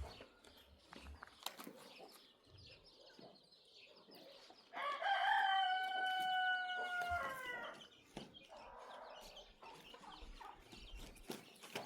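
A rooster crowing once: a single long call of about three seconds, held level and then dropping in pitch at the end, over faint rustling and clicks.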